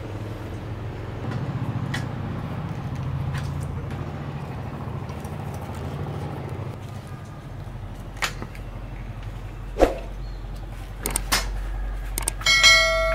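Scattered sharp clicks and knocks of metal motorcycle fork parts being handled as the fork tubes are fitted into the triple clamps, over a steady low hum. Near the end a mouse click and a ringing bell chime sound.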